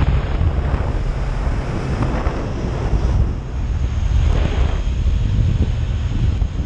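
Strong wind buffeting the microphone of a moving motorcycle, a steady low rumble with rushing swells, over the vehicle's running noise.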